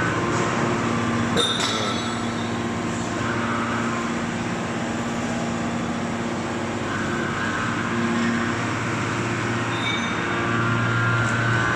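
650-ton hydraulic cold forging press running, its hydraulic power unit giving a steady hum with a higher whine that drops away mid-way and comes back in the last few seconds. A single sharp metallic knock comes about a second and a half in.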